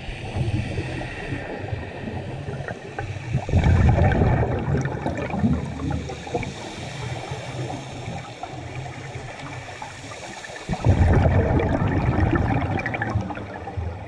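Scuba diver's exhaled bubbles gurgling past a camera in an underwater housing, in two louder surges about three and a half and eleven seconds in, with a muffled underwater rush between.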